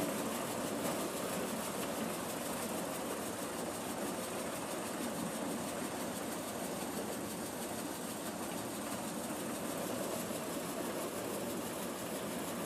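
Vardhman maize sheller running steadily under load as cobs are fed in and shelled kernels stream out, a continuous, even mechanical noise.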